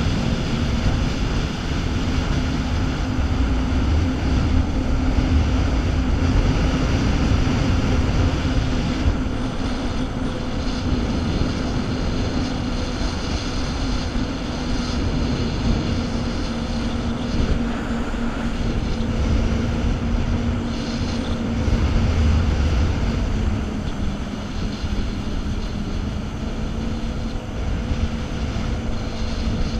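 Jet ski engine running at a steady cruising speed, a constant drone over the rush of water from its wake. Wind buffets the microphone in low gusts.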